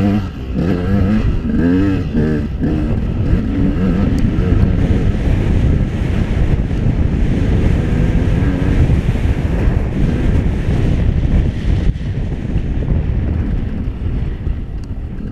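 Enduro dirt bike engine revving up and down over a rough trail, with wind buffeting the microphone. The revs rise and fall sharply in the first few seconds, then the engine note becomes steadier under heavy wind noise and eases a little near the end.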